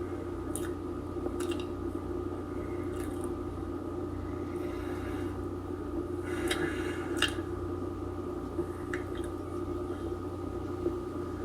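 Steady low hum of room tone, with a few faint clicks and a soft rustle around the middle.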